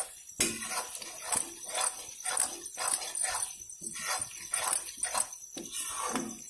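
Spoon scraping and knocking against a cooking pan in quick, irregular strokes as paneer is stirred through a thick gravy.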